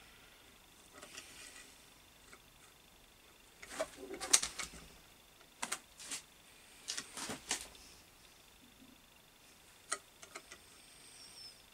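Long steel through-bolt being fed through an electric motor's housing: scattered light metallic clicks and scrapes as it knocks against the casing, the busiest stretch about four seconds in, more near six, seven and ten seconds, with quiet gaps between.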